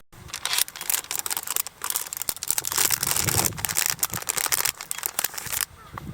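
Rustling and crinkling of something being handled, a dense run of small crackles that stops suddenly about five and a half seconds in.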